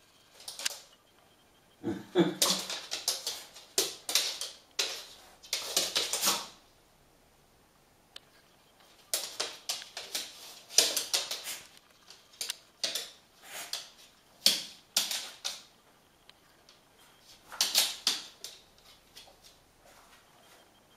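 Terrier sniffing and snuffling in irregular clusters of short bursts, with scattered clicks of its claws on a laminate floor, broken by a few brief pauses.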